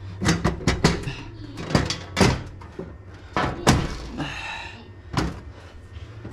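A panel being bent and pushed back into place: a string of irregular sharp knocks and thunks, with a scraping creak a little past the middle.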